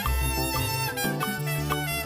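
Background music with brass, a bass line and a steady beat.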